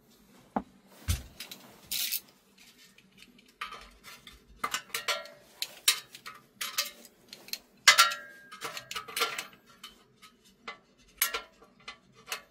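A screwdriver scraping and clicking at the glued spider of an 18-inch loudspeaker and knocking against its frame: irregular scrapes and clicks, with a low knock about a second in. The spider is held fast by a lot of glue and does not come loose.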